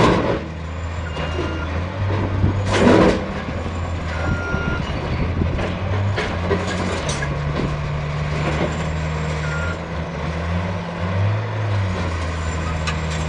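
Heavy truck's diesel engine running with a steady low drone that shifts in pitch, with a short burst of hiss about three seconds in. A few brief high beeps sound several seconds apart.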